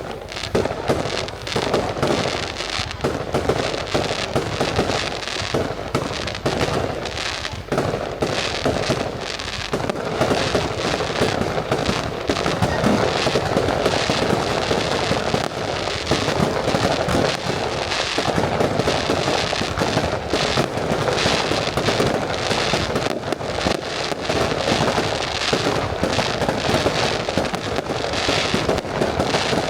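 Fireworks display in a dense, continuous barrage: many overlapping shell bursts and crackling that start abruptly and keep up without a break.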